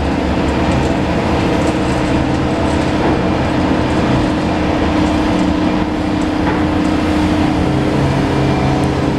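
Heavy construction-machine diesel engine running steadily, a loud continuous drone with a held low hum.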